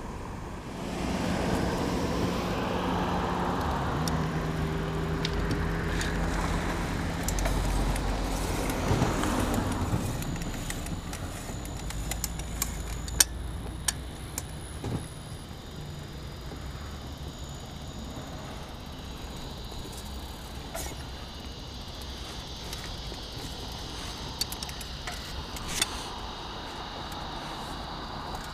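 Riding a fat-tyre bicycle along a road: steady wind and road noise, with scattered sharp rattles and clicks from the bike and its load. A motor vehicle's engine passes in the first ten seconds and is the loudest sound.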